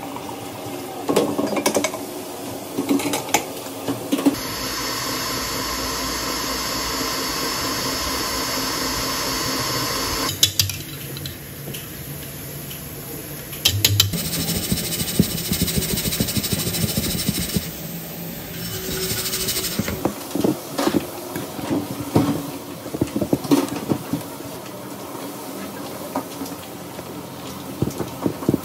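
A KitchenAid stand mixer runs steadily while its wire whisk beats cake batter, in two stretches of about six seconds each. Between and after them come metal clinks and scrapes: the stainless mixing bowl being handled and a spatula folding batter against its sides.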